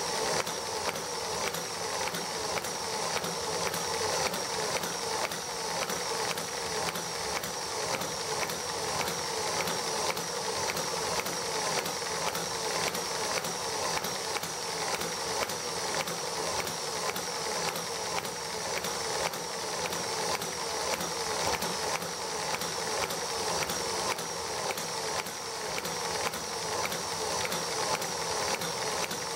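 ET1 model white-gas engine running free with no generator load: a steady, evenly repeating mechanical clatter.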